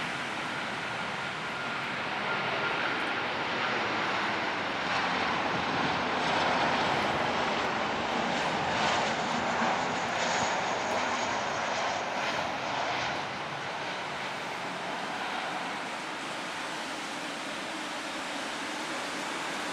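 Boeing 737-800 airliner's twin CFM56 turbofan jet engines on final approach, a steady jet noise that swells as the plane passes closest about six to ten seconds in, then eases as it comes down to the runway.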